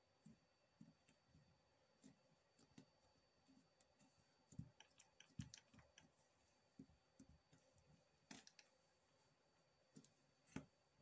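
Near silence with faint, irregular soft taps and clicks of fingers pressing and squaring a layered block of polymer clay on a craft mat.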